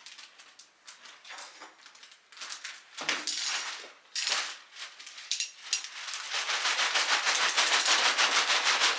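Clear plastic packaging wrap crinkling and crackling as it is handled and pulled off. It crackles in short bursts at first, then crinkles densely and without a break for the last few seconds.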